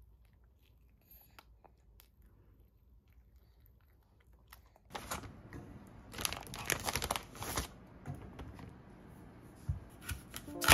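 About five seconds in, a thin plastic bread bag crinkles and rustles loudly for about three seconds as it is handled and opened, then rustles more quietly. Near the end, a knife cuts into an apple on a wooden board.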